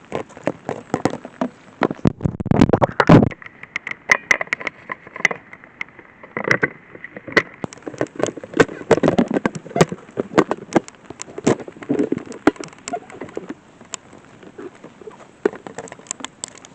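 Irregular sharp clicks and taps of light raindrops striking the weather probe's microphone, with a few louder low thuds mixed in.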